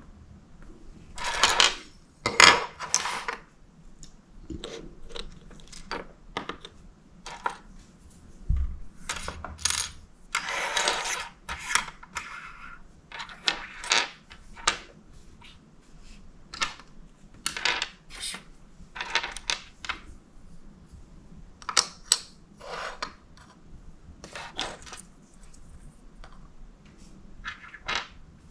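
Small plastic and metal miniature pieces being handled and set down on a wooden table: irregular light clicks, clinks and short rattles. There is one dull knock against the tabletop about eight seconds in.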